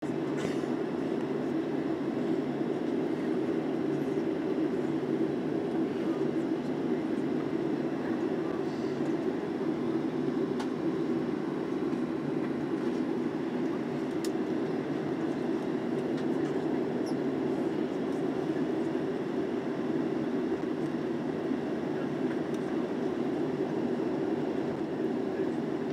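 Steady cabin noise inside a Boeing 737-300 taxiing, with its CFM56-3 jet engines running at low power under an even low rumble.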